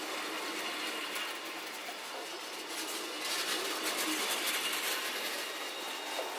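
Passenger coaches of a departing night train rolling slowly past, wheels clicking over rail joints with a faint high squeal. The rolling and clicking grow louder about three seconds in.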